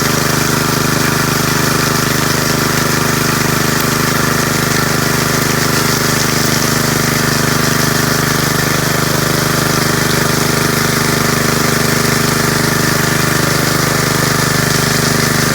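An engine running steadily at a constant speed, with an even drone that does not change.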